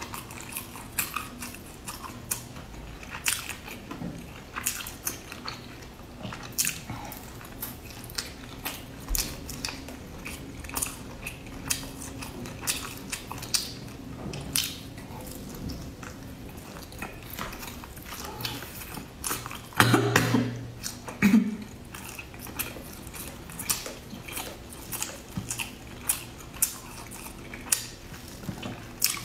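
A person biting and chewing crisp fried food close to the microphone: many sharp, irregular crunches and mouth clicks. A brief louder noise comes about two-thirds of the way through.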